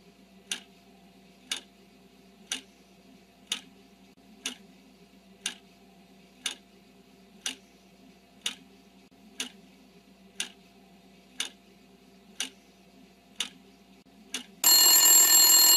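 Countdown-timer clock ticking, one sharp tick a second over a faint low hum, marking the answer time in a quiz. About a second before the end, a loud ringing alarm bell goes off as the time runs out.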